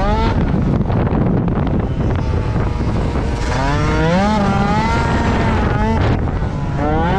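Racing Piaggio Zip scooter engine revving hard, its pitch climbing several times as it accelerates and dropping back in between, with wind noise on the microphone.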